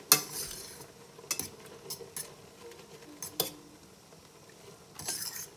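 A metal fork stirring boiling spaghetti in a stainless steel pot, clinking sharply against the pot several times, the first clink the loudest. A short hiss near the end.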